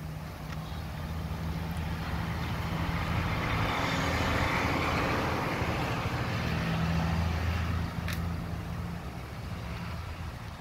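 A vehicle passing by, its noise swelling over a few seconds and then fading, over a steady low hum. A short click sounds about eight seconds in.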